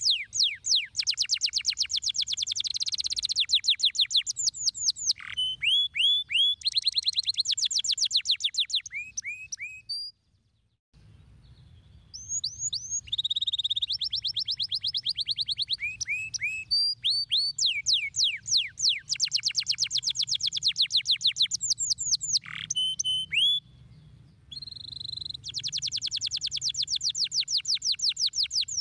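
Domestic canary singing: long, fast trills of rapidly repeated notes, broken up by short rising and falling whistled notes. There is a pause of about two seconds roughly a third of the way in.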